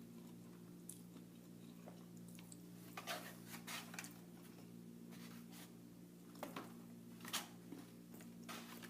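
Close-miked chewing and mouth sounds of a person eating takeout food, with short soft crunches and smacks in two clusters, over a steady low electrical hum.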